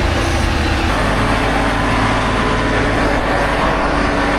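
Combine harvester's diesel engine and drive running steadily under load, its low note shifting about a second in.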